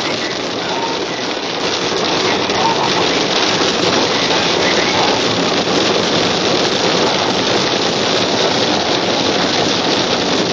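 Heavy rain beating steadily on a car, heard from inside it in the core of a severe thunderstorm.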